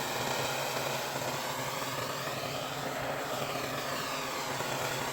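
Steady mechanical drone: a rushing noise over a low steady hum, with a hollow tone in the rush that slowly sweeps up and down.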